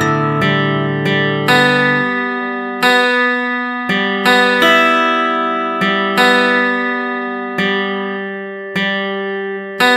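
Background music: acoustic guitar playing slow chords, each struck and left to ring out, about one every second and a half.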